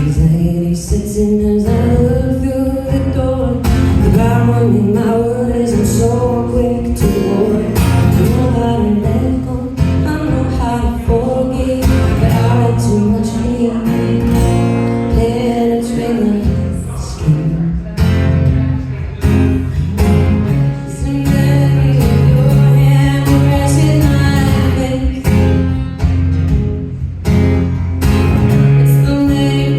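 Live performance of a song: acoustic guitar strummed with a woman singing over it.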